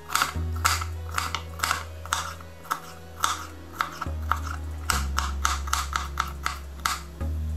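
Kitchen knife chopping a yellow bell pepper on a cutting board: the blade knocks against the board in a steady run of sharp taps, about two to three a second.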